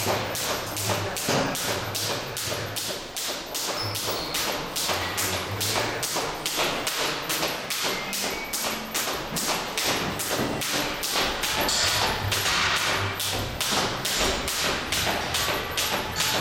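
Jump rope whipping round and slapping the floor with each turn, with feet landing, in a steady rhythm of about three jumps a second.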